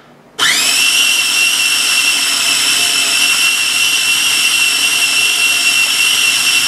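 Small electric food processor motor starting about half a second in, quickly spinning up to a steady high whine as it blends thick tahini paste with added warm water.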